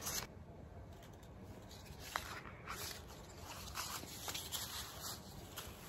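Faint rustling and light handling noise with a few small clicks.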